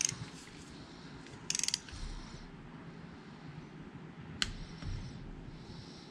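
Ratchet of a click-type torque wrench clicking in two short rapid bursts as it is swung back on a water pump bolt. About four and a half seconds in comes a single sharp click, the wrench releasing at its 15 ft-lb setting.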